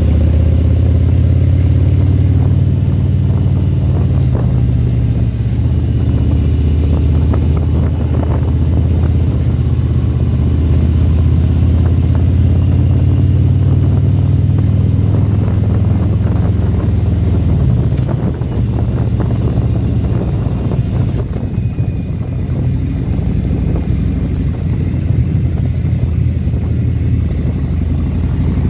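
Motorcycle engine running steadily while riding, with wind and road noise; the engine note eases off about two-thirds of the way through.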